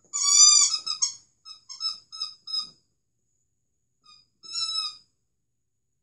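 A dog's squeaky toy squeaking as a small dog bites at it in a pile of paper. There is one long squeak, then a run of short squeaks about four a second, and near the end another long squeak.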